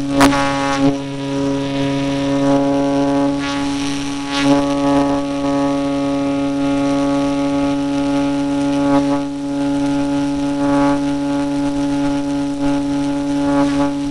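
Electric motor and propeller of an E-flite Apprentice RC airplane droning steadily at constant throttle, picked up by a camera mounted on the fuselage. A sharp click comes just after the start.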